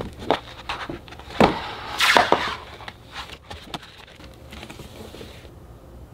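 Glossy photobook pages and large photo prints being flipped and handled: a series of crisp paper flaps and rustles, the loudest about two seconds in, fading to softer rustling later.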